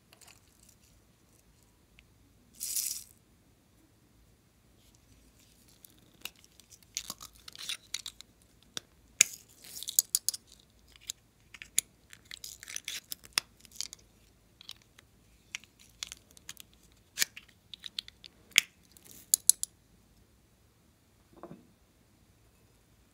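Plastic lipstick tubes and caps being handled close to the microphone: a short hiss about three seconds in, then a long run of small clicks, taps and crackly scrapes, and a soft low knock near the end.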